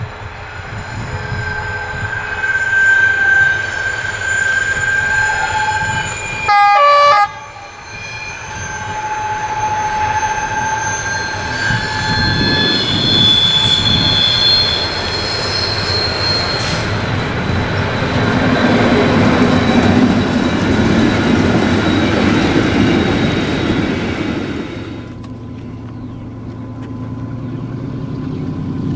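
Ex-ÖBB class 2143 diesel locomotive hauling a passenger train, its engine running under load as the train approaches and passes. There is a short horn blast about seven seconds in, and high steady whining tones through the first dozen seconds. The engine noise builds to its loudest as the train goes by, then drops about 25 seconds in to a lower, more distant diesel hum as it approaches again.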